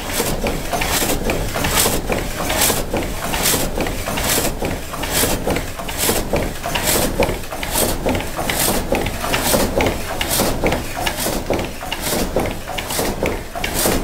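Water-wheel-driven vertical frame saw cutting a log: a rasping cut with each stroke of the blade, a little more than one stroke a second, over a steady low rumble.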